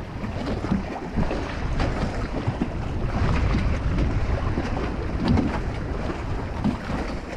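Wind buffeting the microphone while choppy water slaps against the hull of a small fishing boat, an uneven rush with irregular low thumps.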